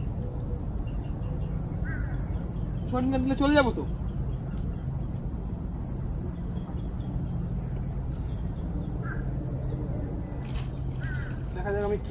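Insects trilling in one steady, unbroken high-pitched drone. A short rising call breaks in about three seconds in.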